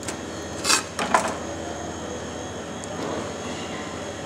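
Chef's knife cutting through the knuckle joint of a raw chicken thigh on a plastic chopping board: a few short scraping cuts about a second in, then a sharp knock of the blade on the board near the end.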